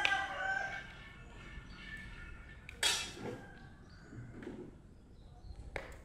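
A rooster crowing, its long held call ending about a second in. Two sharp knocks follow, about three seconds apart.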